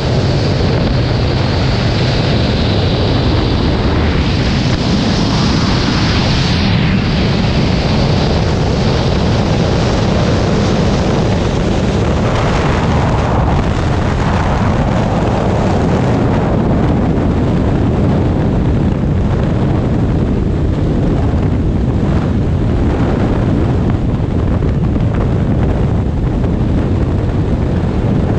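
Freefall wind buffeting the camera microphone: a loud, steady rush, heaviest in the low end, with the higher hiss thinning out after the first several seconds.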